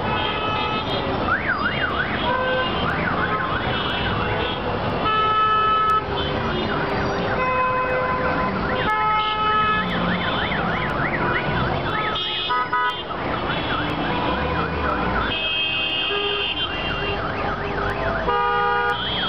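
Gridlocked street traffic: vehicle horns honk in repeated blasts about a second long, over the constant din of idling engines. A rapidly warbling, siren-like electronic tone comes and goes through it.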